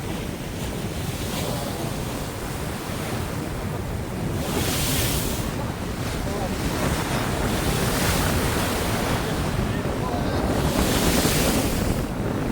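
Sea waves breaking and washing up the shore, with two surges of surf about five and eleven seconds in, over wind buffeting the microphone with a steady low rumble.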